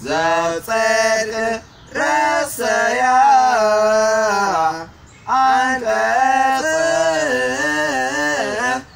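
Male voice singing a slow melody with long held, wavering notes, in three phrases separated by short pauses for breath.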